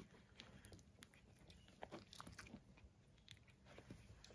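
Faint, scattered wet clicks and smacks from very young puppies mouthing and nuzzling each other.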